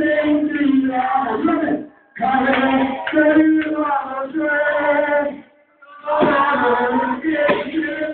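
A man singing into a microphone over a loudspeaker system, in long, held phrases broken by two short pauses.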